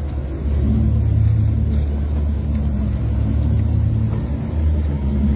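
An engine running steadily, a low drone with no change in speed.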